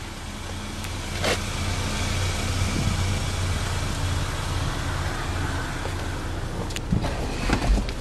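Chevy Equinox's 2.4-liter four-cylinder engine idling steadily, with a few sharp clicks near the end.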